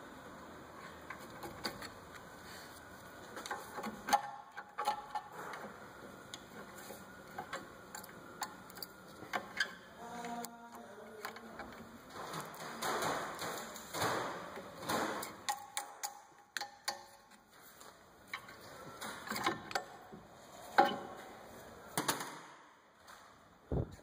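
Metal parts of a car's rear disc brake being handled: scattered clicks, clinks and scrapes as the brake caliper is worked loose from its bracket by hand, with a louder knock about two-thirds of the way through.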